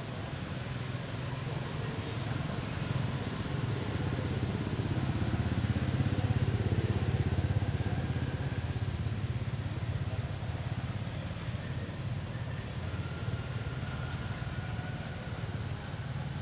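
Low engine rumble of a motor vehicle, swelling to its loudest about six seconds in and then easing off as it passes.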